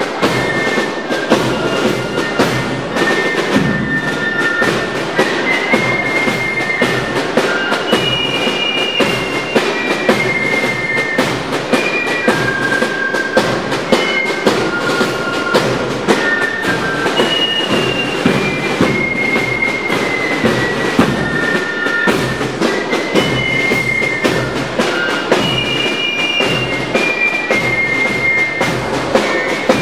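A fife-and-drum marching band playing a march: a high fife melody of held notes over steady, rhythmic drumming.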